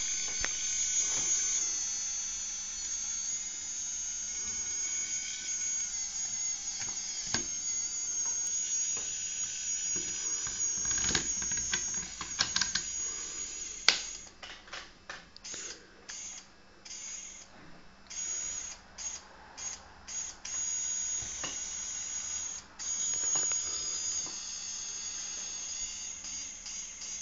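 Small LEGO electric motor and its plastic gear train running with a high-pitched whine. It runs steadily for about the first half, then stops and starts repeatedly for several seconds, then runs steadily again before cutting out near the end.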